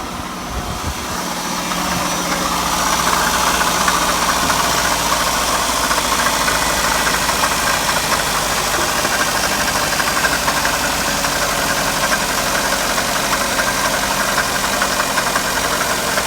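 Daihatsu Tanto L350's three-cylinder 660 cc engine idling just after start-up, with a rattle from the water pump pulley. The pulley is vibrating, a sign of a failing water pump that is also leaking coolant. The sound grows louder over the first few seconds, then holds steady.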